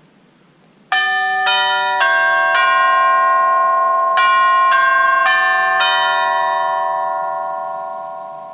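Honeywell 3 Series wireless doorbell chime playing its electronic bell tune: eight notes in two phrases of four, the last ones ringing on and fading away. It sounds as the push button is pressed while the chime's settings button is held down, the chime answering as it pairs with the button.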